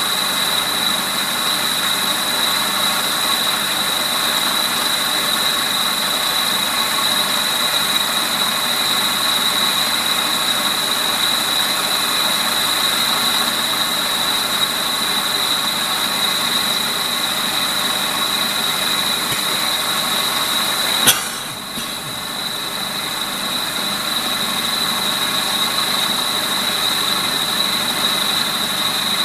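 WARCO lathe running with a milling cutter in the chuck cutting a tenon on a metal tool-post block: a steady machining noise with a constant high whine. A sharp click comes about two-thirds of the way through, after which the sound briefly dips and then builds back up.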